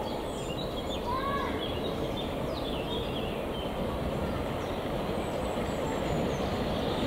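Steam train running along the track, a steady rolling rumble with no distinct beats. Birds chirp briefly over it about a second in and again near three seconds in.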